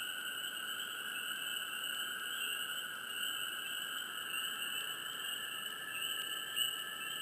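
Dense swamp chorus of many frogs chirping together, a steady high-pitched wall of overlapping calls with small swells in loudness.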